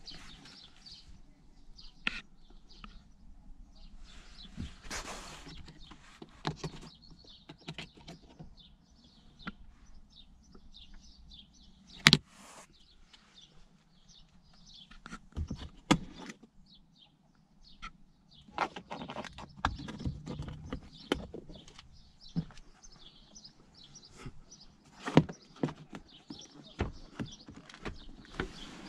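Handling noise inside a car's rear cabin: scattered knocks, clicks and rustles as the rear seats and trim are touched, with one sharp click near the middle. Birds chirp faintly outside.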